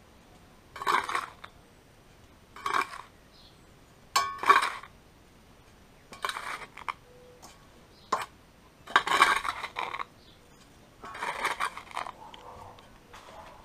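Small steel trowel scraping and scooping sand-cement mix and packing it under paving stones: a series of short scrapes, about one every one and a half to two seconds, with a couple of sharp clicks.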